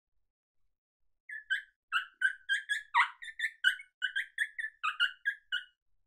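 Mouth diaphragm predator call (MFK diaphragm) blown to imitate a coyote's excited yip: a quick run of about twenty short, high yips, some four a second, starting about a second in. An excited yip is a coyote's call for another coyote's attention.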